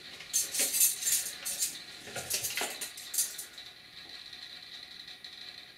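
Plastic nutrient jug being picked up and handled and its screw cap worked open: a run of short plastic clicks and rattles over the first three seconds or so.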